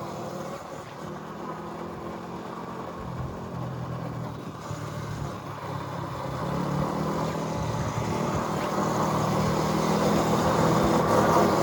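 A vehicle engine running steadily with a low hum, growing louder over the second half, over wind and road noise.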